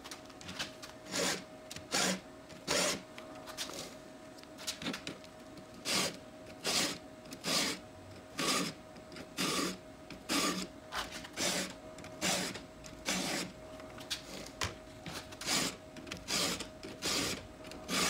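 Stihl 2-in-1 chainsaw file rasping on the saw chain's cutters, stroke after stroke in groups of about three per tooth. Each push of the round file sharpens the cutter while the flat file takes down the raker (depth gauge) at the same time.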